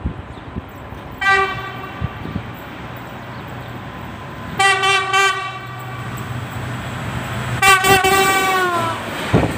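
American-built diesel locomotive sounding its horn as it approaches at speed with Talgo coaches: a short blast about a second in, two quick blasts around the middle, and a longer blast near the end that drops in pitch as the locomotive passes. A steady low engine drone runs underneath, and the rush of the passing train rises at the very end.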